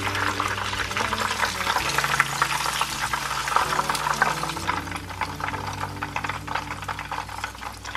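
Panko-crumbed chicken steak frying in hot oil in a pan: a dense, steady crackle and sizzle of bubbling oil, thinning a little after about four seconds as the steak is lifted out of the oil into a strainer.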